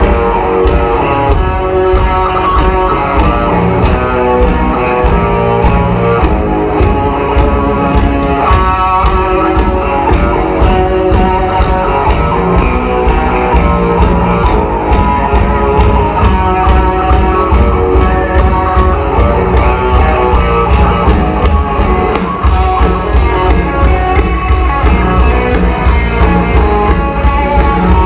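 Live rock band playing loud: electric guitars over a steady drum beat. About three-quarters of the way through, the cymbals open into a brighter, denser wash.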